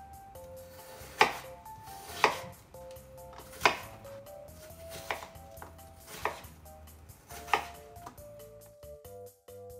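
Kitchen knife chopping apple into chunks on a wooden cutting board: six sharp chops, about one every second or so.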